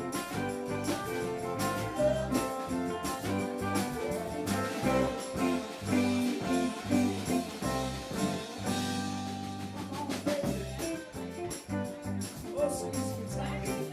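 Live band playing a rock song, a drum kit keeping a steady beat under guitar and other instruments.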